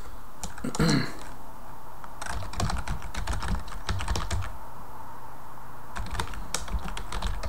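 Typing on a computer keyboard: two quick runs of keystrokes, the first from about two seconds in and the second from about six seconds, with a short pause between them.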